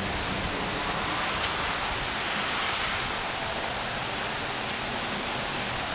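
Heavy rain falling steadily, an even hiss of rain hitting surfaces.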